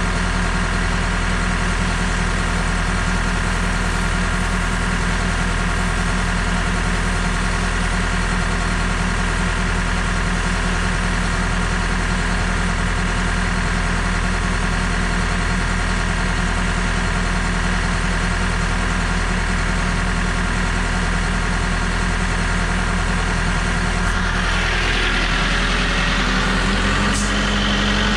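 A heavy engine running steadily at a constant speed. Near the end a hiss joins in.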